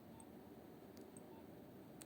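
Near silence with a few faint clicks about a second apart, from buttons on a mobile phone's keypad being pressed.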